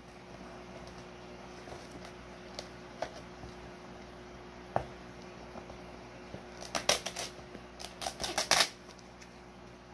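Packaging being handled as a fish shipping box is opened by hand: a few light clicks, then two bursts of sharp crackling and rustling about seven and eight seconds in.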